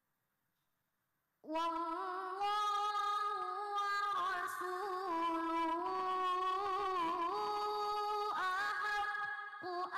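A young boy's high voice reciting the Quran through a microphone in a slow, melodic chant with long held, ornamented notes. It begins after about a second and a half of near silence and breaks briefly for breath near the end.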